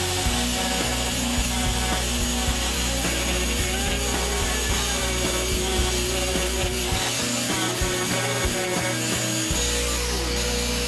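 An angle grinder fitted with an Arbortech ball gouge runs steadily while its cutter scoops into wood, a continuous grinding, shaving noise.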